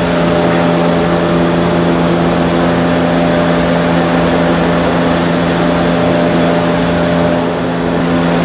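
Steady mechanical hum: a constant low droning note with overtones under an even rushing noise, from a machine running in the shop.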